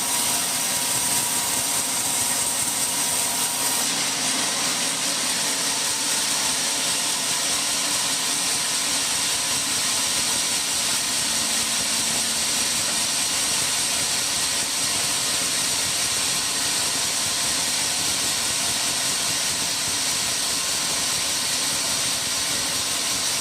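Sawmill machinery running steadily: a constant noise with faint high whines, with no cuts or impacts standing out. The high part of the sound shifts about four seconds in.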